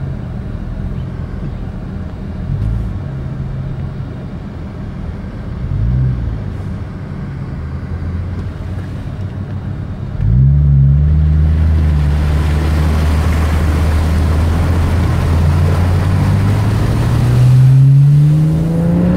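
Car engine running at low speed, heard from inside the cabin. About ten seconds in the engine note steps up and a steady loud hiss joins it as the car drives through floodwater over the road, water spraying against the tyres and underbody. Near the end the engine pitch rises as the car accelerates.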